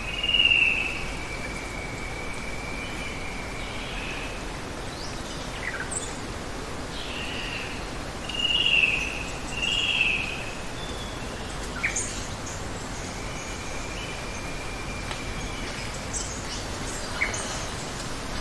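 Steady running water under bird calls: short warbled calls, loudest about half a second in and again around nine and ten seconds, and a few quick sharp chirps. A thin steady insect drone comes and goes.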